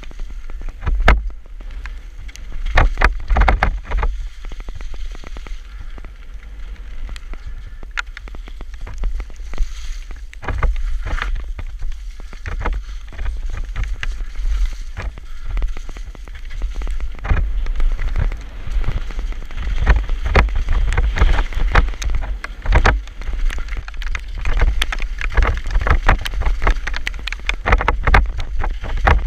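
Mountain bike descending a wet dirt trail at speed: tyres on mud, with frequent irregular knocks and rattles from the bike over bumps and roots. Heavy wind buffeting on the microphone.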